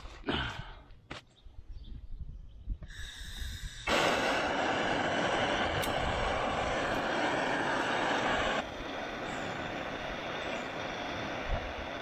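Handheld gas torch lit about four seconds in, then burning with a loud, steady hiss. About three seconds before the end the flame noise drops to a quieter steady level. Faint clicks and handling sounds come before it lights.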